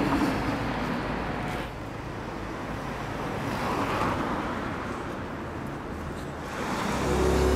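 City street traffic with cars driving past, and a deep engine rumble building near the end.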